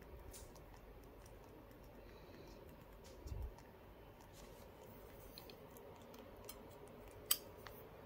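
Faint small clicks of a parrot chick's beak working at a metal feeding spoon as it eats hand-feeding formula, with a low bump about three seconds in and one sharper click near the end.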